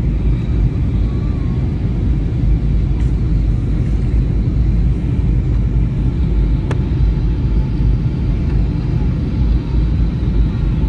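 Airliner cabin noise in flight: a steady low rumble from the engines and airflow, with a single brief click a little past halfway.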